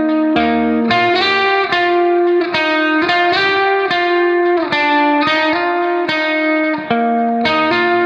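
Background instrumental music: a plucked guitar melody, one note after another at a steady, even loudness.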